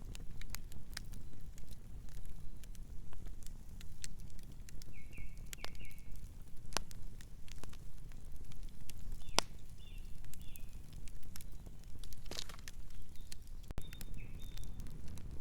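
Wood campfire crackling, with irregular sharp pops and snaps over a steady low rumble. A few short high squeaks come through now and then.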